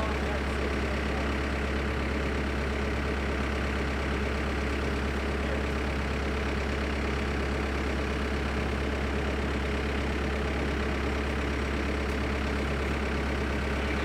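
Backhoe's diesel engine idling steadily, a constant low drone with no change in speed.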